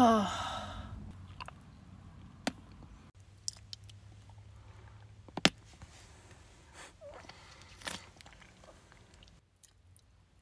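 A short, loud vocal sound falling in pitch, then quiet mouth sounds of chewing and sucking on gummy candy, with sharp lip-smacks or clicks about two and a half, five and a half and eight seconds in.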